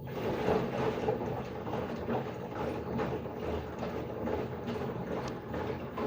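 LG washing machine running: a steady churning noise with irregular small clicks and rattles throughout.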